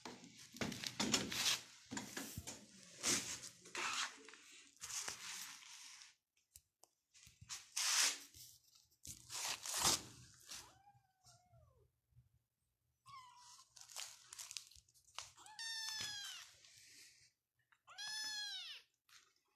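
Persian kitten meowing a few times in the second half, short calls that rise and fall in pitch, the two loudest near the end. Before them, scuffing and rustling noises.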